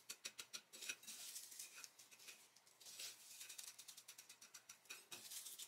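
Faint, irregular crackling of panko breadcrumbs as a gloved hand presses and pats them onto a cod fillet.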